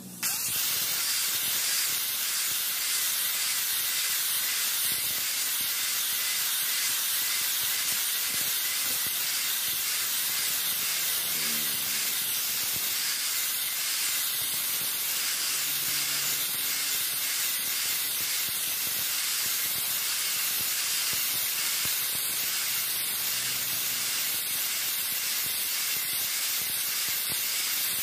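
Handheld electric angle grinder with a flap disc grinding the steel of a knife blade cut from a brush-cutter blade: a steady, loud grinding noise that starts abruptly as the grinder is switched on and set to the metal.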